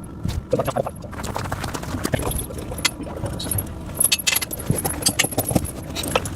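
Steel tractor tire chains clinking and rattling as the links are handled and dragged, in quick, irregular clinks.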